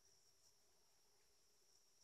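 Near silence, with only a very faint steady high-pitched tone.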